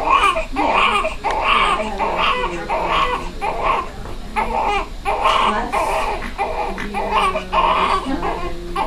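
Newborn baby crying in short, rapid cries, about two a second.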